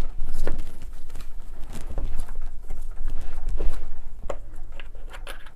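Irregular knocks and clicks of AEG BH25 rotary hammer parts being handled and moved while the drill is taken apart, with low thumps of handling on the bench.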